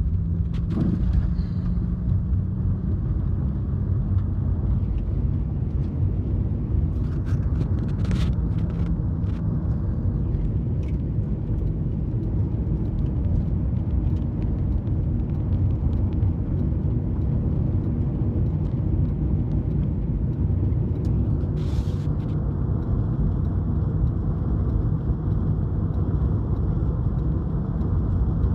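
Road and engine noise inside a moving car: a steady low rumble, with a few light clicks about a third of the way in.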